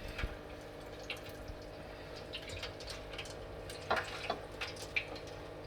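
Battered kingfish pieces frying in canola oil in a deep fryer: irregular wet pops and crackles over a steady low hum.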